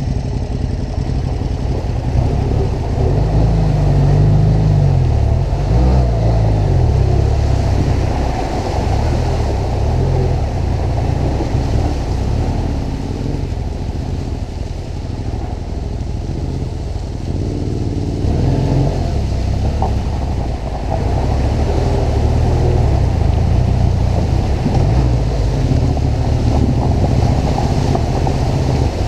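Twin-cylinder adventure motorcycle engine running as the bike rides through a flooded, muddy dirt track, the revs rising and falling a few seconds in.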